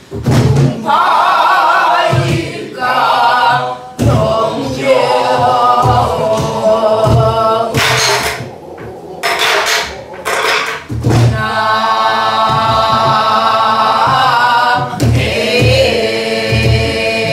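A group singing a slow Korean folk song together, accompanied by barrel-shaped sori-buk drums struck with sticks. A few sharp drum strokes, several seconds apart, mark the slow jinyangjo rhythm.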